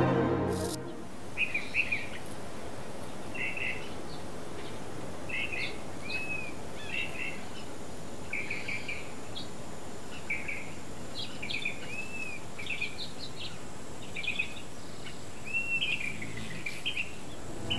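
Wild birds chirping and calling: clusters of short chirps and a few rising-and-falling whistled notes, repeating every second or so over a steady low background hiss, after background music fades out in the first second.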